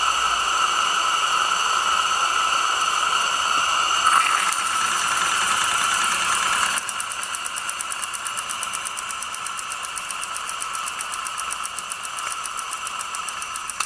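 Small oscillating-cylinder model steam engine running on steam from its new gas-fired boiler: quick, even exhaust beats, about six or seven a second, standing out clearly from about seven seconds in, over the steady whistling hiss of the gas burner.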